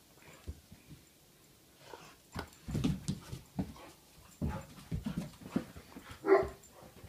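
Great Pyrenees puppy playing boisterously on carpet: irregular thumps and scuffles, in clusters, with one short, louder burst near the end.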